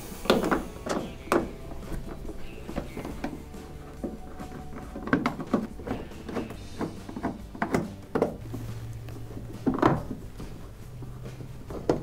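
Phillips screwdriver backing out the screws that hold a dryer's control panel: scattered light clicks and knocks of the driver and hands against the panel.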